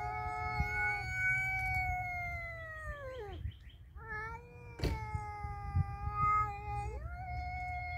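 Cats yowling at each other in a standoff: long, drawn-out caterwauls that hold their pitch and then sag downward. One call dies away about three seconds in, and after a short pause the yowling starts up again and carries on to the end. A single sharp click sounds midway.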